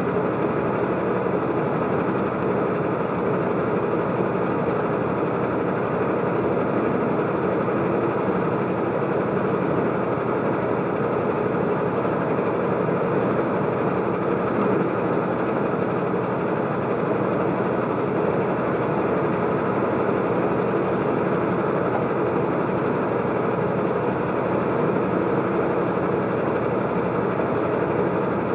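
Steady engine and tyre noise heard inside the cab of a vehicle cruising at highway speed, with no change in pitch or level.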